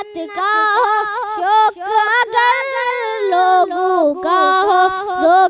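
A boy's voice singing an Islamic naat into a microphone: long held notes with winding ornaments and pitch slides, a wordless melodic stretch between lines of the verse.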